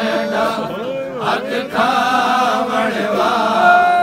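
Men's voices chanting a Punjabi noha, a mourning lament, led by a reciter reading the verses from a sheet, with long held notes near the end.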